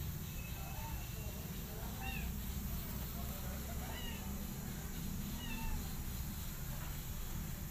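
A domestic cat meowing several times, short and faint, over a steady low rumble.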